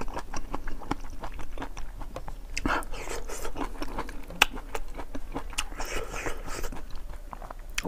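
Chewing and wet mouth smacking while eating boiled fish head, with many small clicks and scrapes as the head is picked apart by hand.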